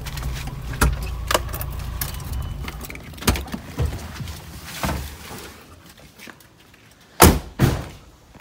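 Car engine idling with a low rumble that dies away around the middle, under scattered clicks, knocks and key jingles as the occupants get out. Near the end comes a pair of loud thumps close together from a car door being shut.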